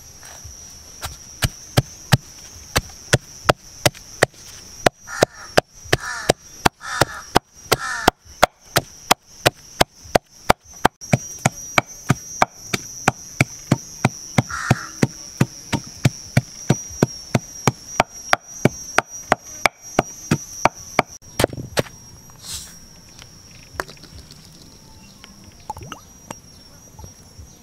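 Wooden pestle pounding sliced lemongrass and herbs in a wooden mortar: steady, regular thuds about two to three a second that stop about twenty-one seconds in. A steady high-pitched insect drone runs underneath.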